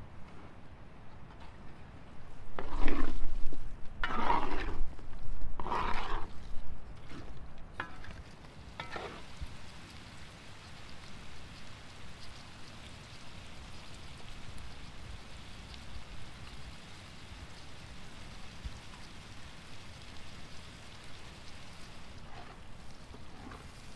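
Beef liver, potatoes and mushrooms frying in a large metal cauldron. A wooden spoon stirs and scrapes the pan in four or five loud strokes a few seconds in, then the food sizzles steadily.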